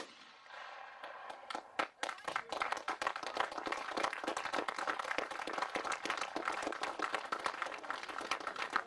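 A shotgun report fading right at the start, then from about two seconds in, a group of people clapping steadily.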